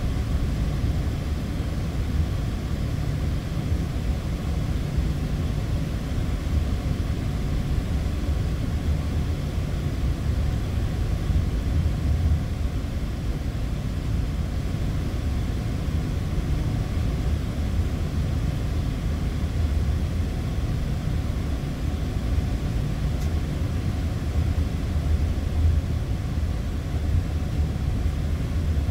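Inside the cabin of a Boeing 777-200 taxiing at low engine thrust: a steady low rumble from its Rolls-Royce Trent engines and airframe, with no build-up of power.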